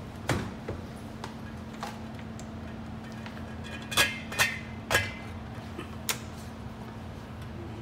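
Metal cookware clinking: a few sharp clinks with a brief metallic ring, three of them close together about four seconds in, over a steady low hum.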